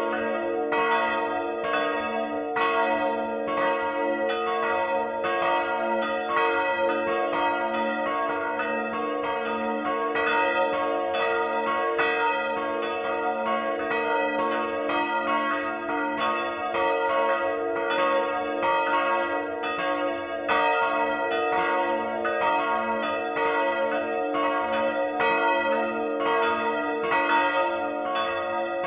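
Swinging church bells, several ringing together at close range in the belfry: a steady, unbroken run of overlapping strikes, each stroke ringing on into the next.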